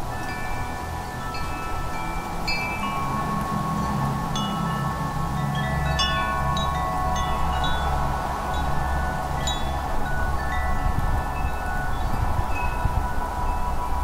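Wind chimes ringing at random, many clear tones struck one after another and left to ring on, over a steady low rush of wind.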